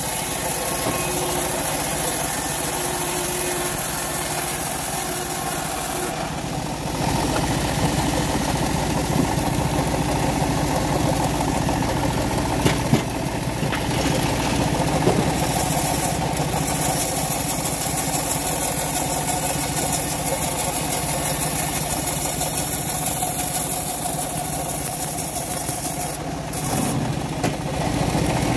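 Homemade bandsaw sawmill running with a steady mechanical drone as the blade saws through timber boards. The sound dips briefly about six seconds in and again near the end.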